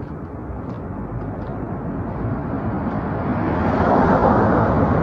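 A vehicle approaching on the road, its rushing engine and tyre noise growing steadily louder as it nears.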